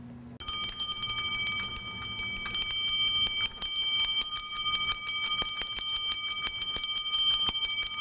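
Two-chimed nickeled brass sleigh bell shaken by hand on its springy stand, the clapper striking rapidly and the bell ringing continuously with several clear tones; it starts about half a second in.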